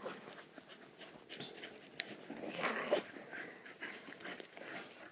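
A group of dogs, French bulldogs and an American Staffordshire terrier, playing and chasing, faintly heard: scattered short dog noises and scuffles, the loudest a little under three seconds in.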